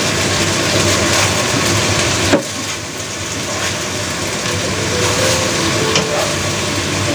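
Eggplant and minced meat sizzling in a wok while a wooden spatula stirs and scrapes through them. There is a sharp knock about two and a half seconds in and a smaller one near six seconds.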